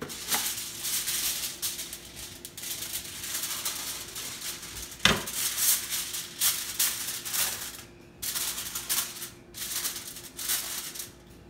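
A sheet of aluminum foil crinkling and rustling as it is handled and smoothed flat, in irregular crackly bursts, with one sharp knock about five seconds in.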